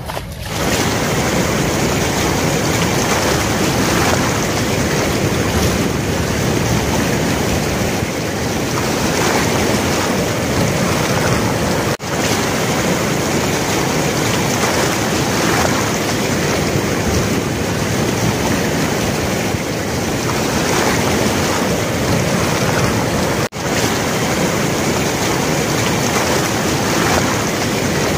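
Floodwater rushing and churning in white foam below a barrage's open sluice gates: a loud, steady rush of water. It cuts out for a split second twice.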